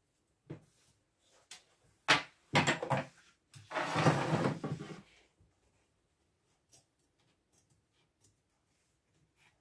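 Handling noises on the work table: a few sharp clicks and knocks in the first three seconds, then about a second and a half of rustling as scissors are picked up and the denim fabric is moved. Faint ticks of cutting follow near the end.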